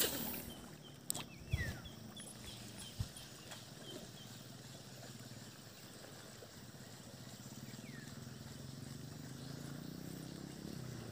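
A bird's short, high chirps repeated about three times a second, stopping about four and a half seconds in, with a few light clicks near the start and a soft low rumble that grows toward the end.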